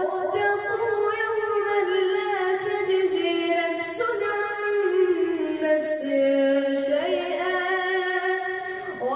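A Quran reciter's voice chanting in melodic tajweed style: one long ornamented phrase of held notes, stepping down in pitch around the middle and rising again near the end.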